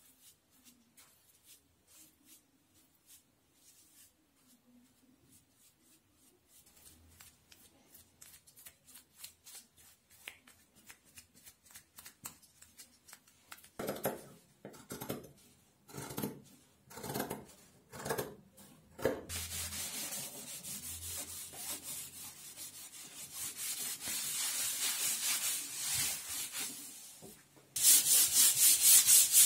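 Scissors snip through a sheet of sandpaper, then a hand-held sanding block is rubbed back and forth over a wooden board. The sanding starts as a steady rubbing and becomes loud, quick strokes near the end.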